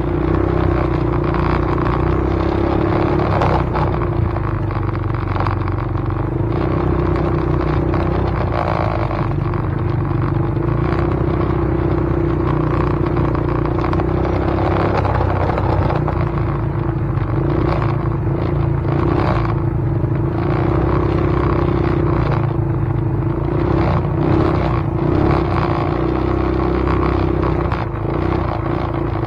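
A vehicle's steady running rumble with a constant drone.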